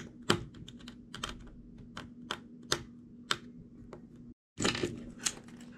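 Small screwdriver turning out the screws in the plastic core of a Qiyi Void Cube: scattered light clicks and ticks of the driver and the plastic parts, at irregular spacing.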